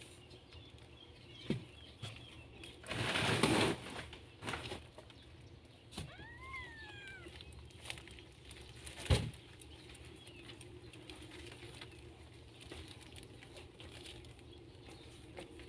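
Newborn kittens nursing and shifting in their bedding: soft rustling and small knocks, with a loud rustle about three seconds in, a single high kitten mew that rises and then falls around six seconds in, and a sharp knock about nine seconds in.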